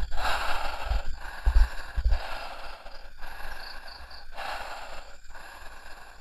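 A man breathing deliberately and heavily close to the microphone, in long slow breaths of about a second each, to calm himself. A few low thumps come in the first two seconds.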